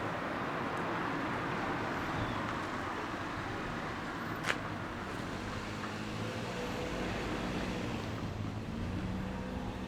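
Steady rushing noise of a vehicle, with one sharp click about four and a half seconds in. A low engine hum comes in over the second half.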